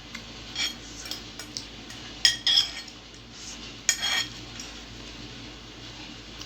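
Metal cutlery clinking and scraping against a dish while a bowl of Maggi noodles is eaten up. There is a scatter of light clinks, with the loudest a little over two seconds in and again about four seconds in.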